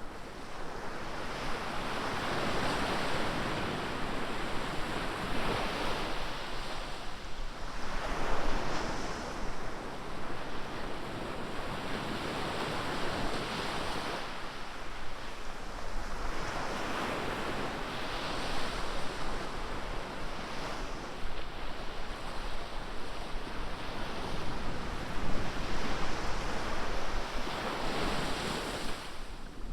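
Ocean surf: waves breaking and washing up the beach in a steady wash that swells and falls back every few seconds, with a light rumble of wind on the microphone.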